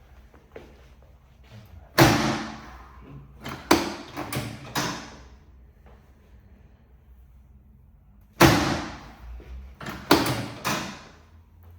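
Chiropractic drop table sections snapping down under quick thrusts, a loud knock each time: one about two seconds in, a few more close together soon after, then another run of knocks past the eighth second. The thrusts are meant to rotate a shifted sacrum back into place.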